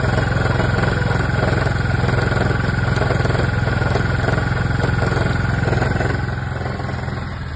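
Keeway Vieste 300 scooter running steadily with a high whine from its CVT transmission, a fault that a replacement variator has not cured. The engine and whine drop off about six seconds in.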